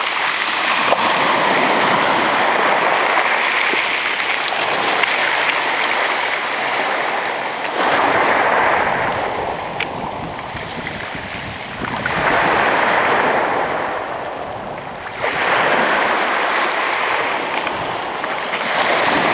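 Small sea waves breaking and washing up a pebble beach. The wash swells each time a wave comes in, about every three to four seconds in the second half.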